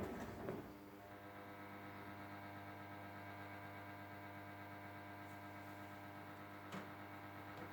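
Ariston Margherita washing machine's drum motor winding down and stopping about half a second in, leaving a pause in the wash with only a faint steady electrical hum. A single sharp click comes near the end.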